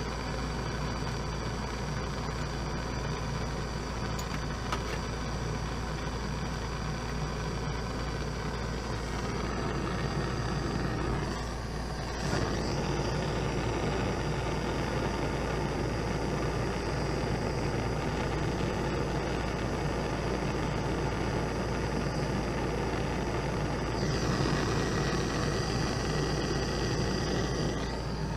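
Steady hiss of a handheld gas torch flame heating a silver piece to sweat-solder a wire ring onto it, growing louder about twelve seconds in.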